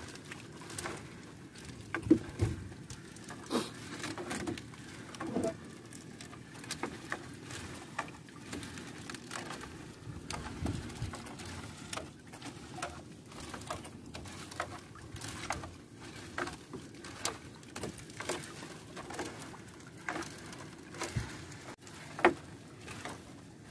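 A fishing net being hauled in by hand on a small boat: irregular pattering of dripping water and light taps and knocks, a few of them louder.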